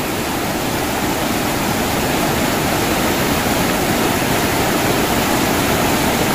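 Steady rushing of a river's swift current, growing slightly louder over the few seconds.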